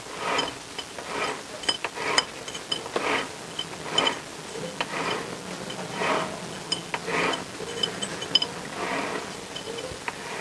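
Honda CBR1000F clutch plates clinking and scraping against the metal clutch basket as they are worked out by hand, in short bursts about once a second with sharp metallic clicks among them.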